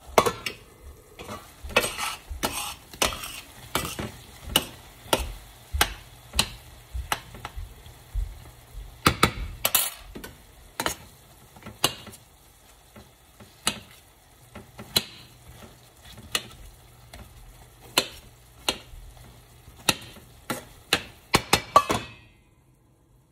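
A metal utensil stirring diced apples and pears in a stainless steel pan, with sharp clinks and scrapes against the pan and lid about one or two a second, over a faint sizzle of the fruit frying in butter and sugar. The clinking stops shortly before the end.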